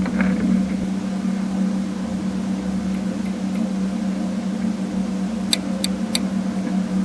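Underwater sound through a piezo hydrophone with preamplifier: a steady low hum, with three sharp clicks in quick succession about five and a half seconds in.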